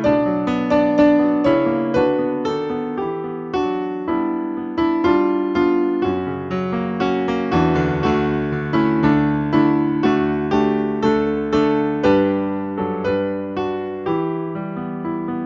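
Solo piano music: chords and a melody struck about two notes a second, each left to ring and die away.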